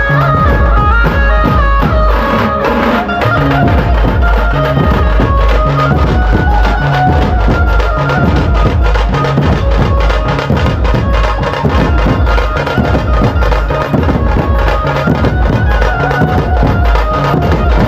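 Loud Indian devotional folk-style music with a heavy, steady drum beat and a melody line over it.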